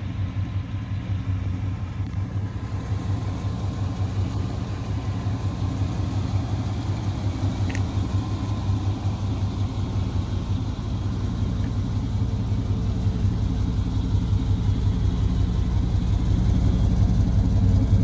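Engine of an old 1990s full-size GM pickup truck idling steadily, a low even hum that grows a little louder toward the end.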